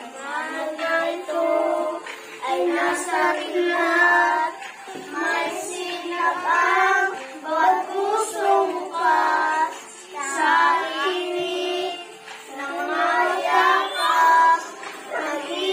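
A group of children singing a song together, in sung phrases with held notes and short breaks between them.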